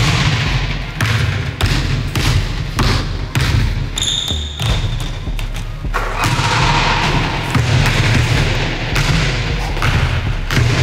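Basketball bouncing, a series of thuds at uneven spacing, with a brief high squeak about four seconds in.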